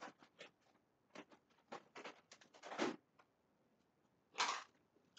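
Faint, irregular clicks, taps and short scrapes of small objects being handled at a desk, with a longer scrape near the end.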